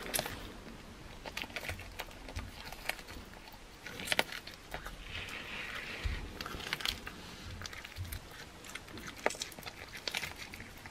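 A cat eating raw meat: irregular wet clicks and smacks of teeth and tongue as it chews and licks.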